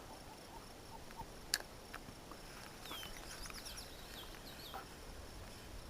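Faint outdoor ambience of insects making a steady high drone, with a cluster of short bird chirps about three seconds in and one sharp click about a second and a half in.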